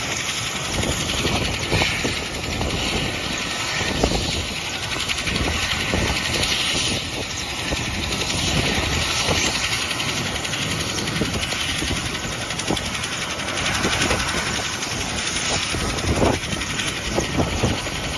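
Mil Mi-17 helicopter running on the ground with its rotor turning: a steady rushing turbine and rotor noise with a thin, high turbine whine.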